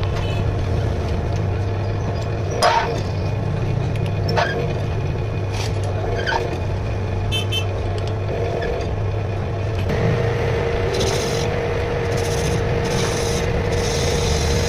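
Metal lathe running with a steady low hum, with a few sharp metal clicks as its levers are worked. About ten seconds in, the tool cuts into the spinning bearing bush, adding a steady higher tone and a hiss of cutting.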